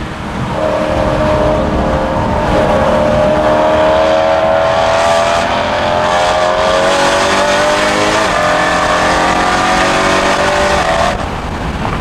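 BMW E92 M3's 4.0-litre V8 pulling hard under throttle, heard from inside the cabin. Its note rises slowly for several seconds, then cuts off suddenly about a second before the end.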